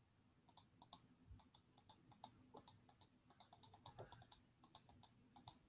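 Faint, irregular clicking of computer input, several clicks a second, as a PDF is scrolled through on screen.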